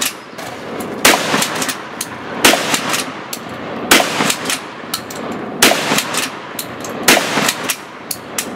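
Pump-action shotgun fired in quick succession: five loud blasts about a second and a half apart.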